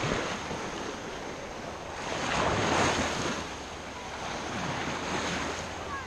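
Small Baltic Sea waves washing and lapping in shallow water, with one louder wash about two to three seconds in, and wind buffeting the microphone.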